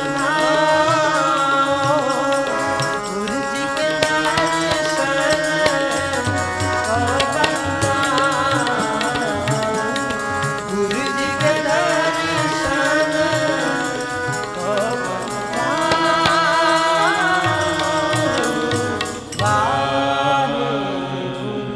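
Sikh kirtan music: sustained harmonium chords over rapid tabla strokes, with a voice singing in wavering melodic phrases at times.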